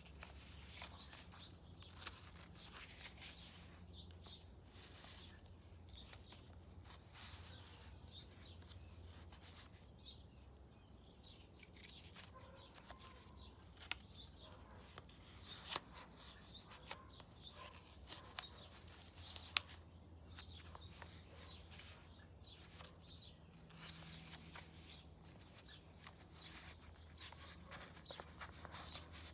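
Faint rustling, crinkling and light clicks of paper being handled and cut, scattered irregularly.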